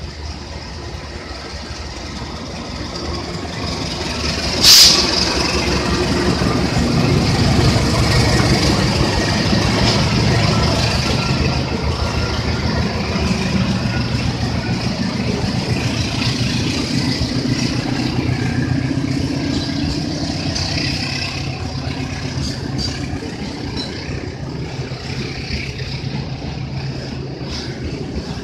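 Container freight train passing close by: the diesel-electric locomotive's engine grows louder as it approaches and goes past, with a brief loud hiss about five seconds in. Then the loaded container wagons roll by, with the wheels knocking over the rail joints.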